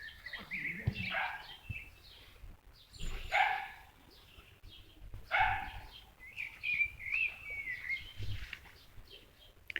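A dog barking three times, about two seconds apart, with small birds chirping and trilling between the barks.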